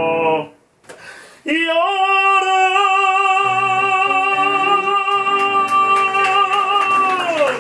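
Male voice singing a Japanese ballad to Casio Privia digital piano. A phrase ends just after the start, and after a pause of about a second he scoops up into one long held final note with light vibrato. Piano chords come in under it, and the note falls away near the end.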